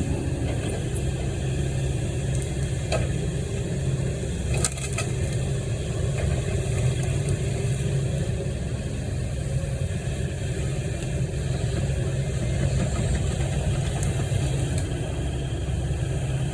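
An engine idling steadily, with a couple of light knocks about three and five seconds in.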